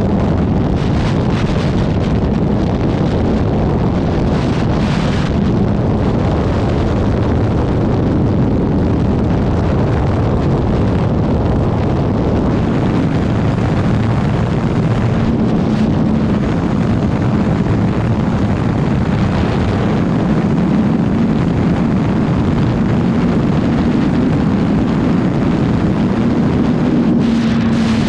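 Loud wind noise on the microphone at riding speed, with the 2019 Suzuki GSX-R750's inline-four engine running underneath. A steady engine note comes through more clearly about halfway through and again near the end.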